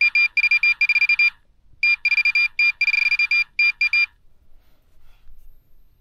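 Minelab Pro-Find 40 pinpointer beeping as it detects a small silver coin. It gives runs of quick, high-pitched beeps that merge into a longer held tone, then stops about four seconds in.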